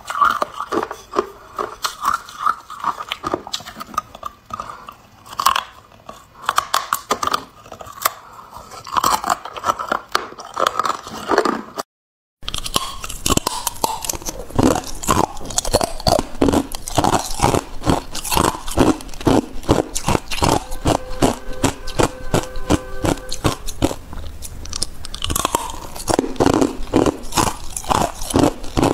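Hard clear ice being bitten and chewed: rapid, repeated crunches and cracks of ice between the teeth. The crunching stops for a moment about twelve seconds in, then resumes, denser.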